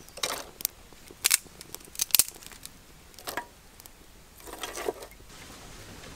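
Wood fire of thin dry twigs crackling in a clay stove: irregular sharp snaps and pops, with the loudest pops about one and two seconds in and a quick flurry of crackles near the end.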